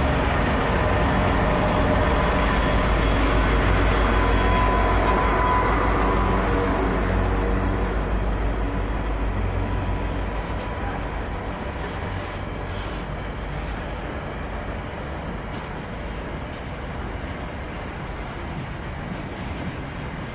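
Diesel locomotives of a slow freight train passing, the trailing G-class unit's engine running with a low, steady hum for the first several seconds. The sound then fades to grain hopper wagons rolling by on the rails.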